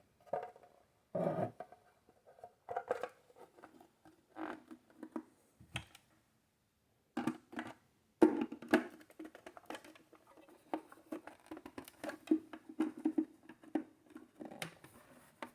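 Plastic parts of a handheld vacuum being handled and fitted back together: scattered clicks, taps and light rustling, with pauses between them.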